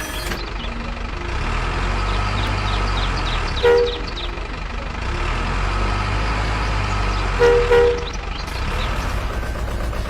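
A steady low engine rumble with a horn honking once a little over three and a half seconds in, then twice in quick succession about seven and a half seconds in.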